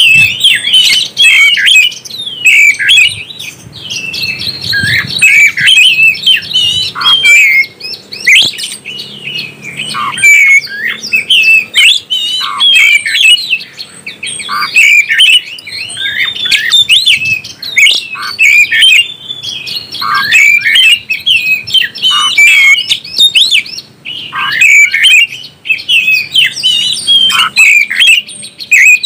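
Oriental magpie-robin (kacer) singing without pause: a loud, rapid, ever-changing run of whistles, slurs and harsh squawky notes, now and then dropping to short lower notes.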